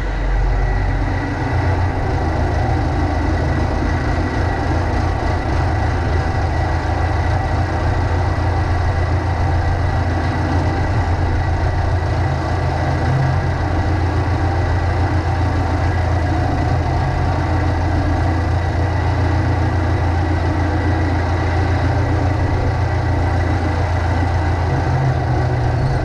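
Massey Ferguson MF50E backhoe's Perkins diesel engine running steadily, heard loud and close from the operator's seat.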